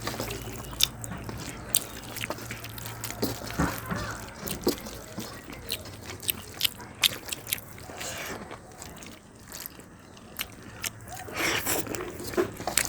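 Close-up eating sounds: chewing, with many irregular wet mouth clicks and short crackles.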